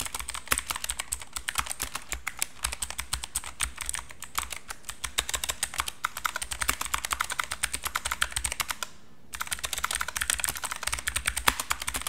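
Fast typing on an ASUS TUF Gaming K3 mechanical keyboard with clicky blue switches: a dense, continuous run of key clicks, broken by one short pause about three-quarters of the way through.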